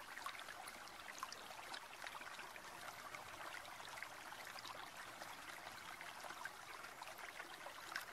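Faint steady background hiss with many scattered tiny ticks and crackles, sounding like trickling water.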